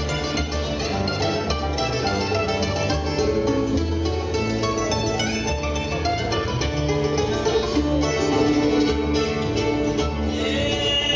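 Bluegrass band playing live on acoustic instruments: fiddle, mandolin, banjo, acoustic guitar and upright bass, with quick picked notes over a walking bass.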